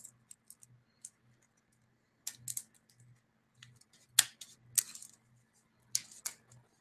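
Dry milkweed stems being broken and stripped by hand to free their fibers: a handful of sharp, scattered snaps and crackles.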